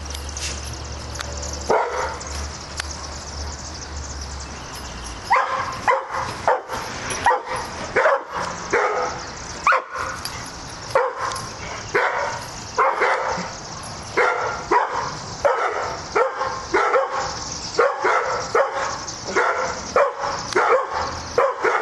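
Dog barking over and over, one bark near the start and then a run of barks about one to two a second from about five seconds in.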